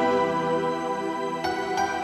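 Background instrumental music with sustained notes, a new chord sounding about one and a half seconds in.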